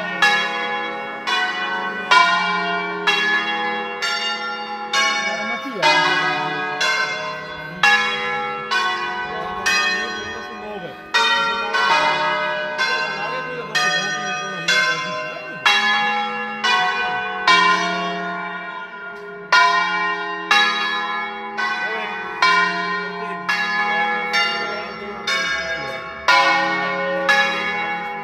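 Church tower's ten-bell ring tuned in D-flat, rung in the Veronese system: swinging bells struck one after another in a steady melodic sequence, each stroke ringing on into the next.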